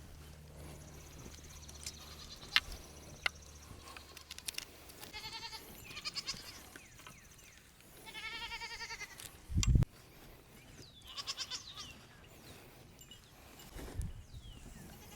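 Nigerian dwarf goats bleating: two wavering, quavering cries, each about a second long, a few seconds apart. A single loud low thump comes shortly after the second bleat, and a few sharp clicks are scattered through.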